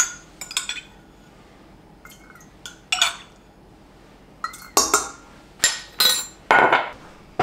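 A metal tablespoon clinking against a stainless steel stand-mixer bowl and a glass measuring cup while water is spooned into the bowl: about eight sharp clinks spread out, some with a short ring.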